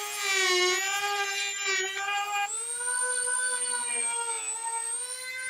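A high-speed electric power tool running with a steady whine. Its pitch dips briefly about half a second in, as if under load, and steps up a little about two and a half seconds in.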